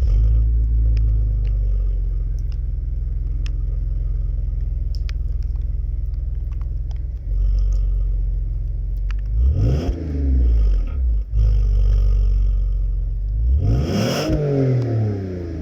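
Alfa Romeo 159 3.2 Q4's 3.2-litre V6 on its stock exhaust idling steadily, then blipped: a few quick revs about ten seconds in and a bigger, higher rev rising and falling near the end.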